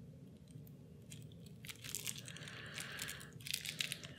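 Plastic shrink-wrap crinkling and tearing as it is pulled off a deck of game cards, faint at first and getting louder from about two seconds in.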